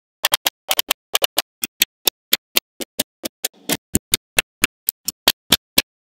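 Small magnetic balls snapping together one after another: a run of sharp clicks, about four a second, some in quick pairs, with silence between.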